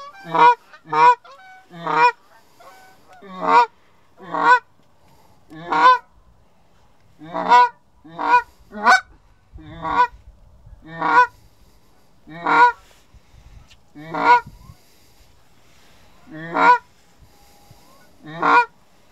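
Canada goose calls blown close and loud by hunters, a steady string of about sixteen sharp honks and clucks, some in quick pairs, calling to a flock of Canada geese working the decoys.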